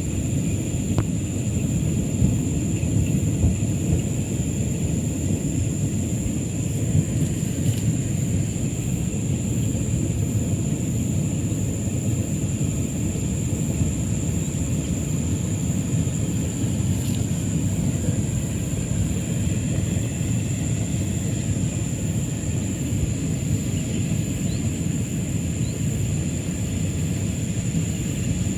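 Steady wind rumble buffeting the microphone outdoors, with a constant thin high-pitched whine above it.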